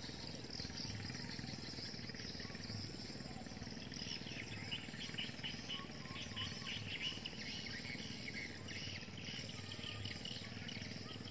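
Steady outdoor background noise, with a run of high chirping calls from small wild creatures from about four seconds in until about nine seconds.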